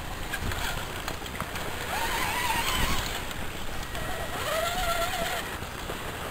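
Scale RC crawler's electric motor and gears whining in two throttle bursts, rising and then wavering, as the truck crawls over rock, over wind rumble on the microphone.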